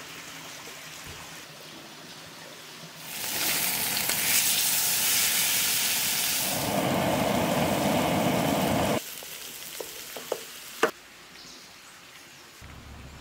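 Whole mackerel frying in hot oil in a pan, a loud, steady sizzle lasting about six seconds that cuts off abruptly. A few light clicks follow.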